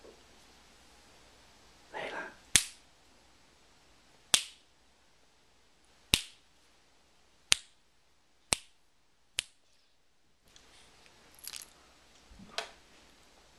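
A series of six sharp, loud clicks, one every one to two seconds, each dying away quickly. Softer rustling follows near the end as a basset hound rolls over on the carpet.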